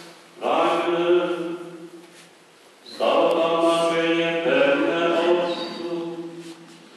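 Catholic priest chanting a prayer into a microphone, in two phrases on near-steady reciting notes with a short pause between.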